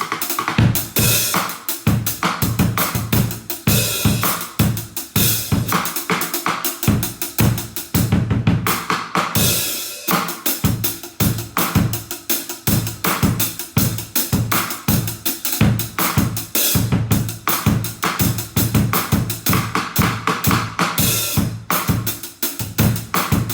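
Acoustic drum kit played continuously: kick drum, snare, hi-hat and cymbals in a fast, steady groove, heard as the bare room sound without close mics or processing.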